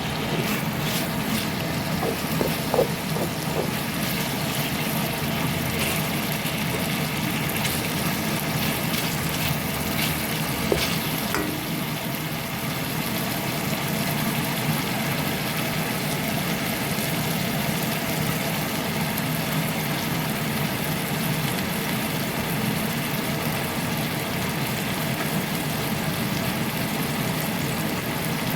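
Steady hum and hiss of stovetop cooking, with a few sharp clinks in the first ten seconds or so.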